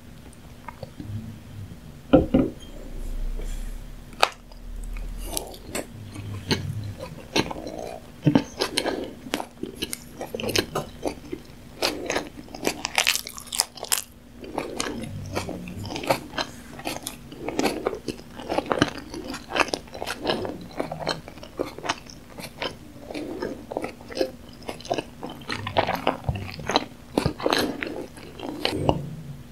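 Close-miked chewing of tuna sushi: wet, sticky mouth sounds with many quick clicks and smacks, over a faint steady hum.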